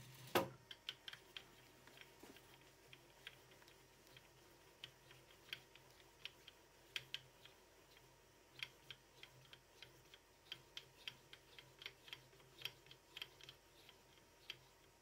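Light, irregular metallic clicks, a few a second, with one sharper click just after the start, as the lathe tailstock's quill carrying an ER16 collet chuck holder is wound out by hand. A faint steady low hum lies underneath.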